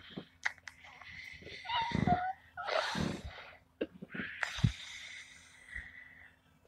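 A sleeping man snoring: three long snores.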